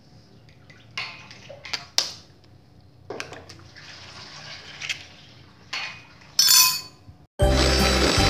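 An egg is cracked open into a plastic bowl of sugar, with a few sharp taps and clinks and the egg dropping in. About seven seconds in, an electric hand mixer starts up loudly, beating the eggs and sugar.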